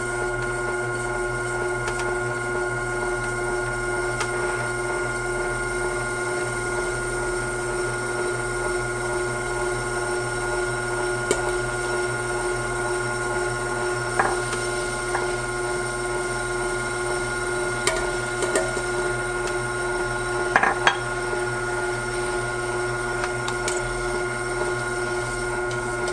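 Ultra wet grinder running with its atta kneader attachment: a steady motor hum while the turning stainless drum tumbles crumbly wheat dough against the kneading arm. A few short, sharp knocks come through now and then.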